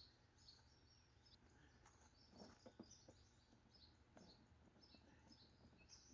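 Near silence, with faint outdoor birds chirping over and over in short high notes, and a few faint knocks about halfway through.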